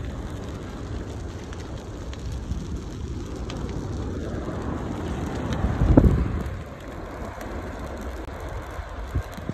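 Wildfire burning through grass and trees: a steady crackling rush with wind rumbling on the microphone. A louder surge swells and fades about six seconds in.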